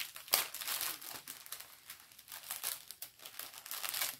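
Plastic packaging of a diamond painting kit, probably the strip of small bead bags, crinkling as it is handled, in irregular crackles with a sharper one about a third of a second in.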